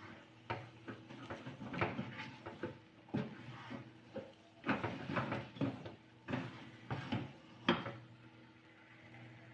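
Spatula scraping and knocking against a wok while stirring thick glutinous rice and coconut, in irregular strokes, over a faint steady low hum.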